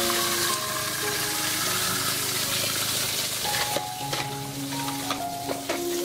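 Water splashing and hissing as toys are washed by hand in a plastic basin, over soft background music. The hiss eases a little under halfway, after which small knocks of toys against the basin are heard.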